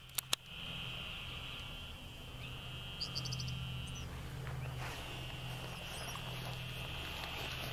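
A steady, high-pitched trilling chorus of small calling animals around a pond, with a low steady hum underneath. Two sharp clicks sound just after it begins, and a few short high chirps come about three seconds in.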